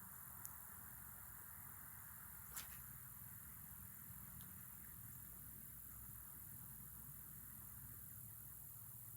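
Near silence: a faint steady outdoor hiss, broken by two small clicks, the second and louder one about two and a half seconds in.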